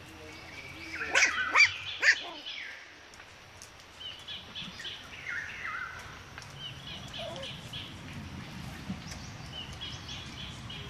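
Young Pomeranian puppies yelping in high-pitched calls. The loudest cluster of yelps comes about one to two seconds in, followed by softer squeaks in small groups.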